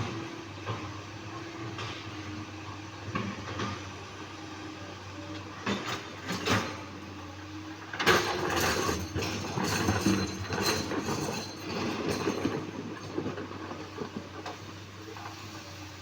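Komatsu PC200-8 hydraulic excavator's diesel engine running steadily, with boulders clattering and scraping as they are moved, heaviest from about eight seconds in.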